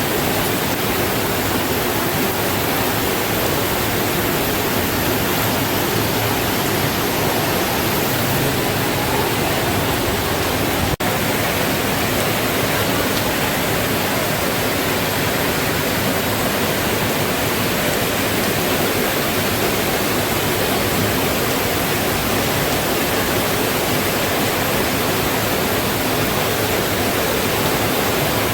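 Heavy rain falling steadily, a dense, even hiss, with one brief click and momentary dip about eleven seconds in.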